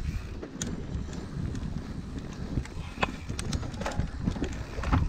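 Mountain bike rolling down a rough dirt trail: a steady low rumble from the tyres and ground, broken by irregular sharp clicks and rattles from the chain and bike parts.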